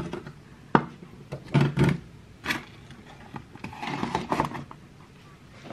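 Household objects being handled: several sharp knocks, then a short stretch of clattering and scraping about four seconds in.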